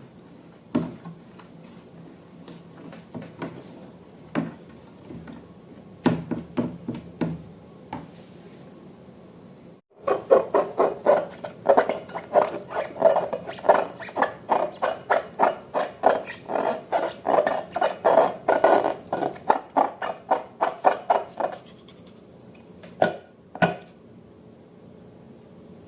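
Slime being mixed: a dense run of quick wet clicks and pops, about three or four a second, that starts about ten seconds in and lasts some twelve seconds, after scattered taps and scrapes.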